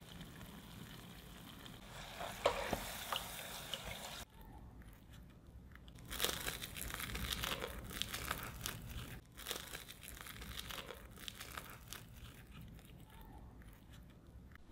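Potato dough balls sizzling in hot frying oil for the first few seconds, with a few sharp pops. Then the crisp crust of a fried potato ball crackling and tearing as it is pulled apart by hand, in many short crunchy strokes.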